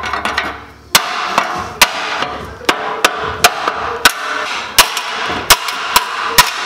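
Claw hammer striking a flathead screwdriver wedged into a steel sheet-metal seam, then hitting the sheet metal directly, in a run of sharp metallic blows about two a second after a quiet first second. The blows are chipping through the last of the drilled-out spot welds so the old frame rail separates from the lower radiator core support.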